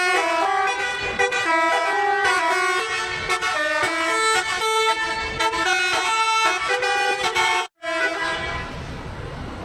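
Indonesian tour bus telolet horn, a multi-tone air horn, playing a quick melody of stepping notes. It breaks off for an instant near the end, sounds again briefly and stops.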